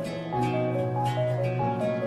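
Background music: a melody of short plucked-string notes over held bass notes, with a change of chord about a third of a second in.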